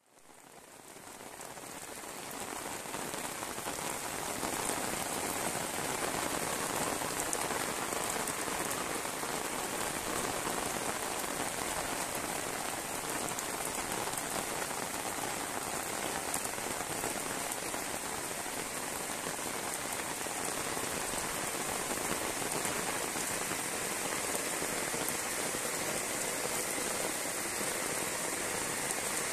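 Heavy rain pouring steadily onto a wet paved lane and nearby roofs, a dense even hiss that fades in over the first few seconds.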